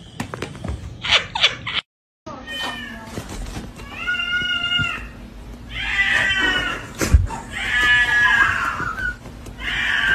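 A cat yowling: a series of long, drawn-out meows, one after another, with one sharp knock between them.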